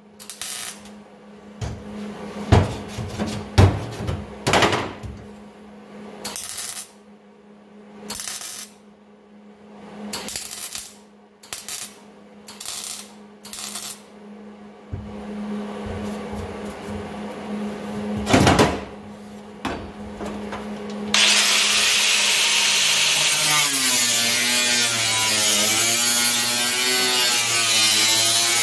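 A handheld power tool working sheet metal: about twenty seconds of short bursts, then a steady run under load for the last several seconds, its pitch wavering.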